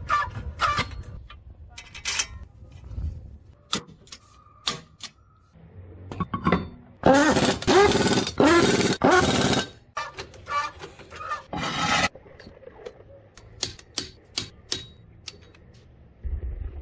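Power impact wrench running lug nuts onto a steel wheel in about four short loud bursts, each sweeping in pitch, with one more short burst a few seconds later. Scattered sharp metal clicks and knocks from hand tools come before and after.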